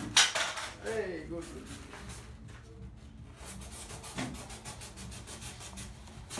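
A blade cutting and scraping through a white foam cork sheet in a run of short, scratchy strokes, with a sharp snap about a fifth of a second in.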